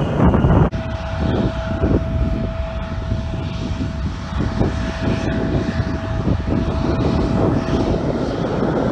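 Bombardier CRJ-series regional jet taxiing, its rear-mounted engines idling with a steady whine over a low rumble. A short burst of wind rumbling on the microphone comes before it in the first moment.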